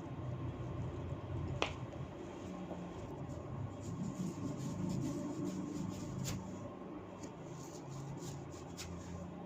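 Hands working through long hair in a head massage, with sharp hair-cracking snaps: one loud snap about one and a half seconds in, and a run of smaller crackles with a few sharper snaps in the second half. A low steady hum runs underneath.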